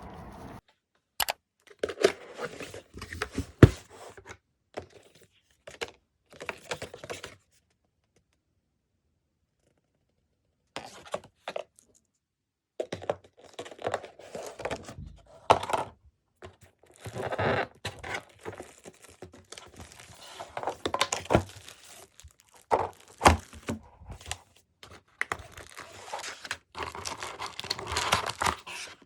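Packaging being handled: irregular tearing and crinkling with sharp knocks, stopping for a few seconds near the middle.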